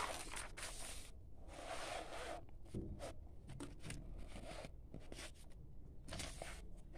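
Paper rustling in short, irregular bursts as sheets of handwritten notes are handled and a page is turned.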